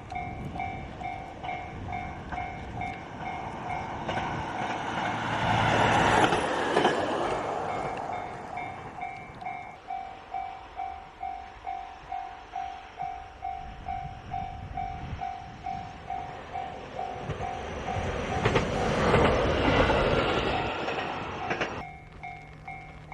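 Railway level-crossing warning bell ringing steadily at about two dings a second while trains pass through the crossing, with a loud rush of train noise about six seconds in and another around nineteen to twenty seconds, the second cutting off abruptly near the end.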